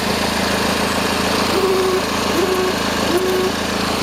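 Car engine idling steadily under the open bonnet. Three short, level tones sound over it in the second half.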